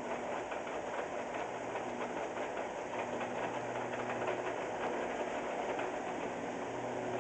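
Car engine and drivetrain running in fifth gear with the drive wheels spinning freely and the brakes lightly applied for load, with a rapid, steady knocking. This is the intermittent knock the owner is chasing, which she suspects is a worn clutch.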